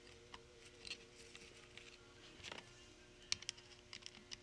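Faint scattered clicks and light handling noises as a rubber vacuum hose and its clamp are worked onto a Bendix brake booster, over a faint steady hum.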